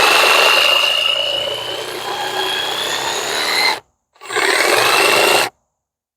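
Jigsaw cutting maple, its motor whine slowly rising in pitch before it stops a little under four seconds in, then a second, shorter run of about a second and a half.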